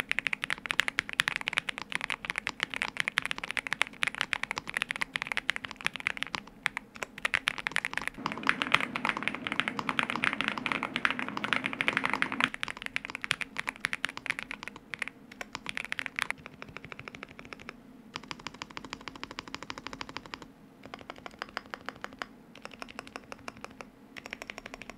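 Fast, continuous typing on a NuPhy Gem80 mechanical keyboard in stock form: factory-lubed Lemon tactile switches on an FR4 plate under MSA-profile PBT keycaps, a deep, thocky sound. The keystrokes grow lighter and quieter for the last several seconds.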